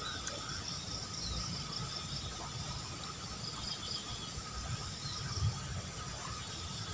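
Insects chirping and trilling steadily in the surrounding vegetation, several overlapping calls; the highest trill stops about four seconds in. Under it runs a low rumble, with one short low bump about five and a half seconds in.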